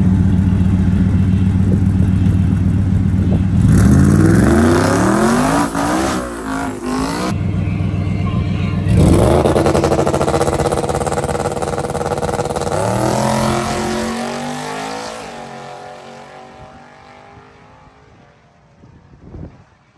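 Twin-turbo Ford F-150's engine on a drag strip, launching softly on low boost from about 3,500 rpm on a stock engine. It runs steadily, revs up and down in rising sweeps, then launches with a sharp climb in pitch, rises again at a gear change about four seconds later, and fades as the truck goes down the track.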